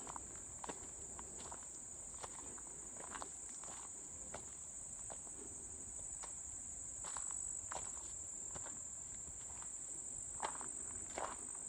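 Footsteps on a dirt woodland trail, crunching at a walking pace, over a steady high-pitched insect chorus.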